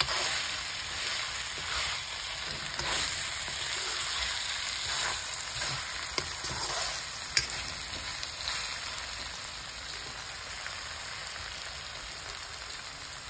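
Chicken, potatoes and fried banana flower sizzling in a wok, stirred and turned with a metal spoon that clicks against the pan now and then.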